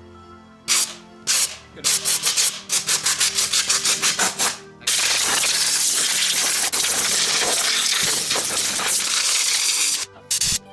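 Quick rubbing or scraping strokes, many to the second, for about four seconds, then a loud steady hiss for about five seconds that cuts off suddenly near the end, with background music underneath.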